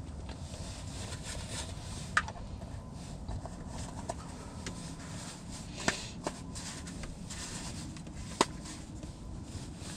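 Wind rumbling against the microphone, with four sharp clicks or taps: one about two seconds in, two close together near the middle, and the loudest near the end.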